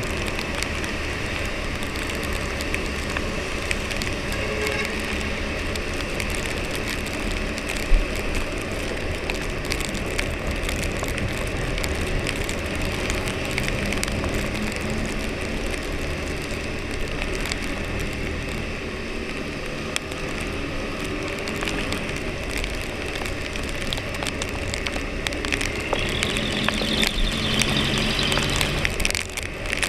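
Husqvarna Svartpilen 401's single-cylinder engine running on its stock exhaust while riding, under a steady hiss of rain and wet road, with the engine note rising near the end. A single sharp knock about eight seconds in.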